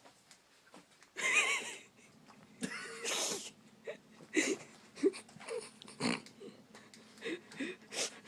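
Pug snorting and wheezing in two loud, rough bursts, the first about a second in and the second near three seconds, followed by scattered short snuffles and clicks.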